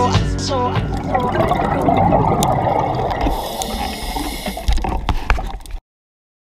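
The last notes of the background music in the first second, then underwater bubbling and rushing from a scuba diver's exhaled bubbles, with a few sharp clicks. It cuts off suddenly near the end.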